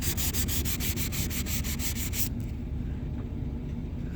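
Hand sanding a van's fender flare with 320-grit sandpaper: quick, even back-and-forth strokes, about six a second, that stop suddenly a little over two seconds in. A steady low hum continues underneath.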